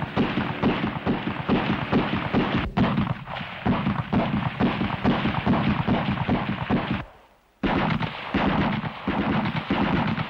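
A .280 EM-2 self-loading rifle firing rapid shots in close succession. The shooting breaks off for about half a second around seven seconds in, then carries on just as fast.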